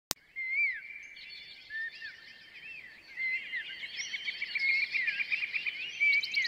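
A flock of birds chirping, many short rising and falling calls overlapping and growing busier after about three seconds, after a single click at the very start.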